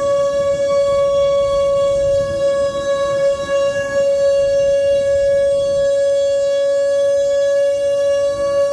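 Whelen WPS-2910 electronic siren, a 10-driver 4,000-watt outdoor warning siren, sounding its Alert signal: one loud, steady, unwavering tone with strong overtones, held throughout.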